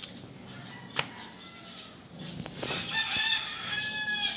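A rooster crowing: one long, high call lasting about a second and a half, starting near the middle. A faint click comes about a second in.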